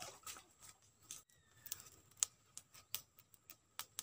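Faint, irregular clicks and light rustling from bare hands handling a small fish on sand, with a short dropout about a second in.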